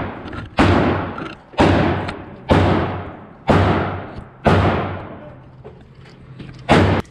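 Shots from a Smith & Wesson M&P AR-style pistol fired at a steady pace, about one a second, five in a row and then one more after a pause of about two seconds, each followed by a ringing echo.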